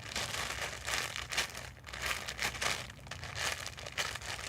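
Crinkling from a squishy toy and its plastic being handled and squeezed, in repeated short bursts.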